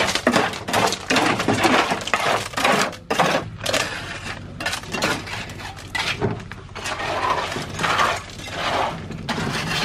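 Steel trowel and wooden screed board scraping and pushing wet concrete and gravel across a floor slab, in a run of short, uneven scrapes.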